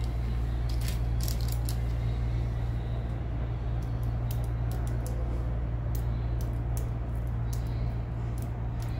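Steel surgical forceps clicking and clinking as they are handled, in short scattered ticks, a cluster about a second in and many more through the second half. Under them runs a steady low hum.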